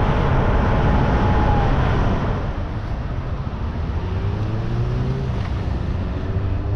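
Road vehicle on the move: steady engine hum with road and wind noise, the engine note rising as it accelerates a few seconds in.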